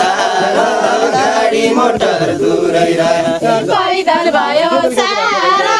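A group of voices singing a Nepali Deuda folk song together, unaccompanied, with wavering, ornamented melody lines.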